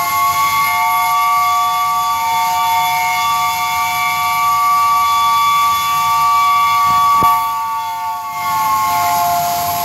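Steam locomotive whistle sounding a long, loud chord of several notes, the pitch rising slightly as it starts. It breaks off about eight seconds in, then blows again.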